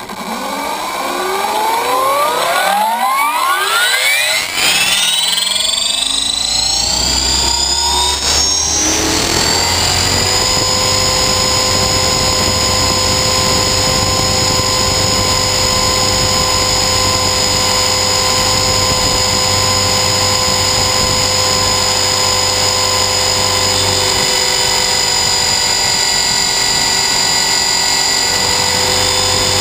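Align T-REX 450 Sport electric RC helicopter spooling up: the brushless motor and gear whine rise steadily in pitch over about ten seconds, then settle into a steady high whine at flying head speed.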